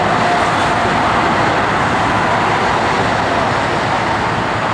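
Boeing 747-8's four GEnx turbofan engines passing low on landing approach: a loud, steady jet rumble and hiss with a faint whine.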